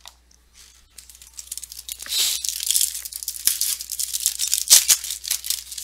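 A 2015 Bowman Chrome baseball card pack's foil wrapper being torn open and crinkled: a run of ripping and rustling that starts about a second in.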